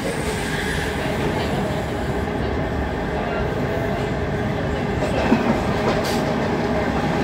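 Class 455 electric multiple unit running at speed over the many tracks and pointwork, heard from inside the carriage: a steady rumble of wheels on rails with a sharp click a little after five seconds. Another train passes close alongside near the end.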